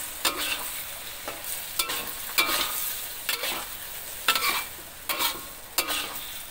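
Metal spatula scraping and scooping around a metal wok as broccoli and tofu are stir-fried in sauce, a scrape roughly every half second to second, over a steady sizzle of the sauce cooking down.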